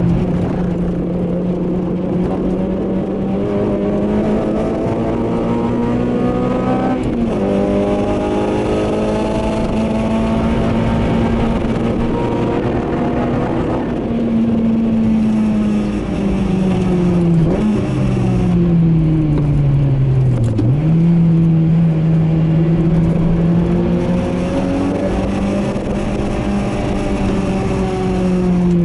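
Honda Civic Type R's 2.0-litre four-cylinder engine, fitted with an aftermarket cold-air intake and exhaust, heard from inside the cabin while being driven hard on track. The revs climb, then drop sharply about a quarter of the way in as it shifts up. Later they fall away under braking, with two quick throttle blips on downshifts, before pulling again near the end.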